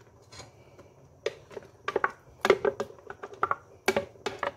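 Thick blended sweet potato being poured and scraped out of a plastic blender jug into a pot: a run of irregular plops and knocks starting a little over a second in.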